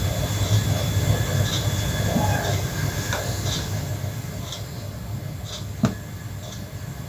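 Gas stove burner flame giving a steady low rumble while it heats a metal plate, with faint high ticks about once a second and one sharp click near the end.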